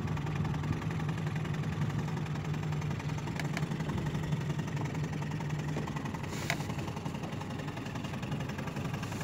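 Boat motor running steadily at slow, near-idle speed, a low even hum, with a couple of faint clicks about three and a half and six and a half seconds in.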